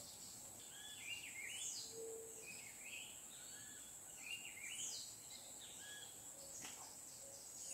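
Faint bird calls, two short runs of chirping about a second and a half in and again near five seconds, over a steady high insect drone.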